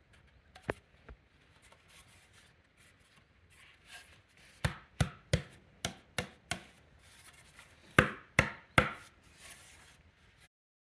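Sharp knocks of a hand tool striking wood, a couple of single knocks and then three quick runs of three, with faint scraping and rubbing between them.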